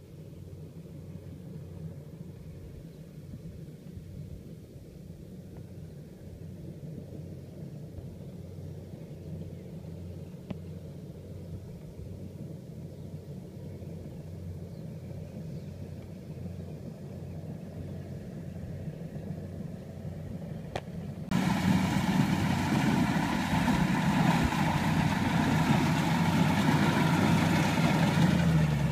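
Rice combine harvester running: a steady low engine hum at a distance, which about 21 seconds in jumps suddenly to a much louder, fuller machine sound, as from close by.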